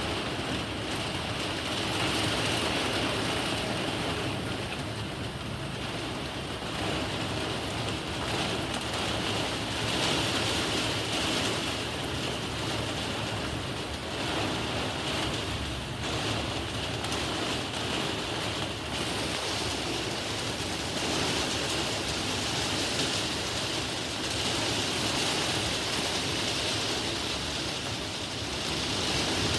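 Heavy rain pouring down in a thunderstorm, a steady hiss that swells and eases gently.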